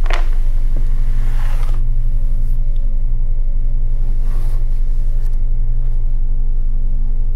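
Low, pulsing rumble drone of a dark film score, held steady, with short hissing rushes of noise at the start, about a second in, and about four seconds in.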